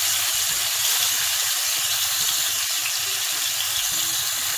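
Yogurt-marinated chicken pieces frying in hot oil in a kadhai on high flame: a steady sizzling hiss as more pieces are laid into the pan.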